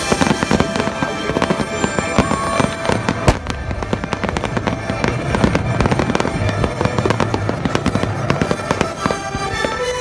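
Fireworks crackling and popping in a dense, fast run of sharp cracks, with one louder bang about three seconds in. Music plays underneath.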